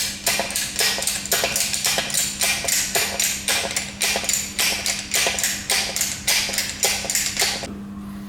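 Rapid series of sharp metallic taps or clicks, about three a second, which stop suddenly near the end, over a steady low hum.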